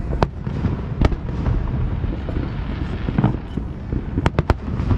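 Aerial fireworks going off: sharp cracks over a steady low rumble of booms, with a quick run of three cracks near the end.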